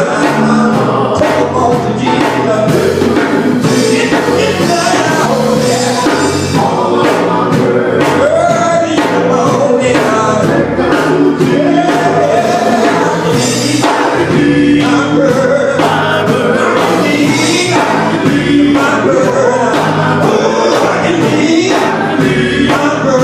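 Gospel group singing together with band backing: a steady bass line and regular drum hits under the voices.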